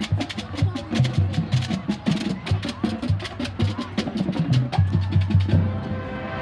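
Marching band drumline playing a cadence: quick, sharp snare and stick clicks over pitched bass-drum thumps. Near the end the drums stop and a held wind-band chord comes in.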